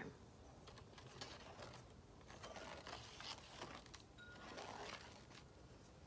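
Faint rubbing of a fingertip tracing a homemade sandpaper letter U, made of salt glued onto red construction paper.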